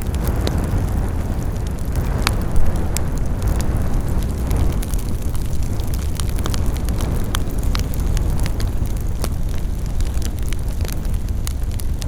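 Campfire burning, with frequent sharp, irregular crackles and pops from the wood over a steady low rumble; one louder pop comes a little over two seconds in.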